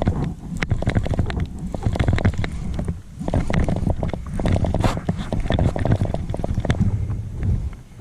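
Kayak moving on the water: water sloshing and knocking against the hull with wind buffeting the microphone, in two long stretches with a short lull about three seconds in.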